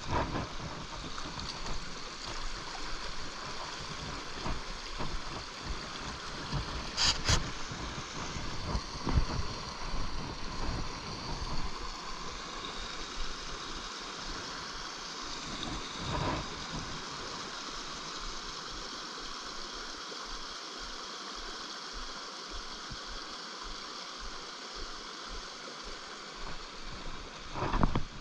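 Small brook running over rocks: a steady rush of water, broken by a sharp double click about a quarter of the way in and a few soft knocks.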